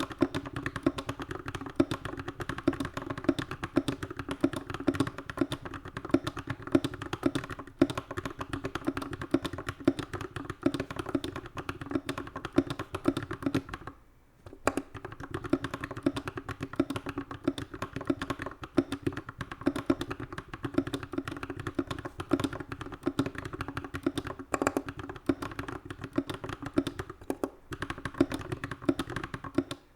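Typing on a custom 60% mechanical keyboard in a wooden case, with lubed Glorious Panda tactile switches and GMK stabilizers: a dense, steady run of key clacks, broken by short pauses about 14 and 28 seconds in.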